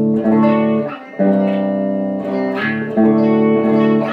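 Clean electric guitar: a Mexican-made Fender Telecaster with Rio Grande Muy Grande pickups through an Orange OR50 amp, the overdrive pedal off. Strummed chords ring out about a second each, with a short break about a second in and new chords at roughly two and a half seconds and near the end.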